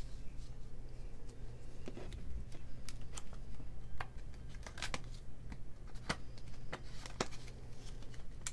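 Paper banknotes being folded and handled, with a clear plastic envelope crinkling as the bills are slid into it: a scattering of short crisp rustles and clicks over a faint steady low hum.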